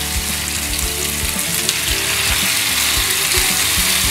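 Rockling fillet frying in olive oil in a hot pan: a steady sizzle.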